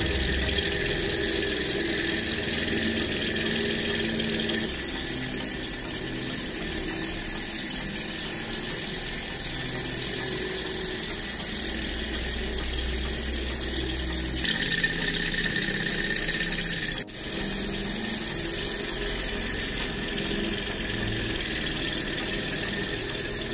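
Model single-cylinder Stirling hot-air engine running steadily, belt-driving a small DC generator, with a steady high-pitched squeal over the mechanism's running noise. The level shifts abruptly about 5 and 15 seconds in, with a brief break around 17 seconds.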